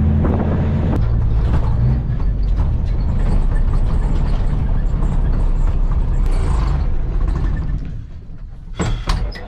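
Heavy diesel machinery running loud and steady, dropping away about eight seconds in, followed by a couple of sharp clicks.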